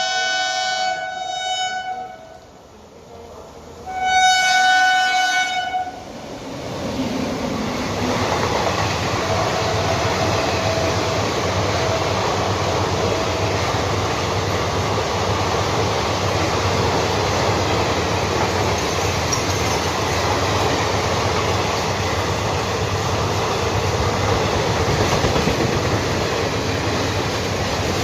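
Two blasts of a WAP7 electric locomotive's horn, each about two seconds long: a weird-sounding chord of several tones, the second blast louder. A few seconds in, the train rushes past, and the steady rumble and rush of its wheels on the rails carries on.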